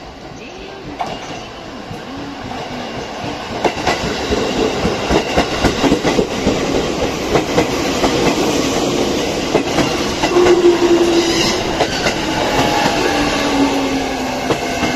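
A JR East E653 series electric multiple unit train arriving and rolling past close by, growing louder over the first few seconds, then a steady run of wheel clicks over the rail joints. In the second half a whine falls in pitch as the train slows.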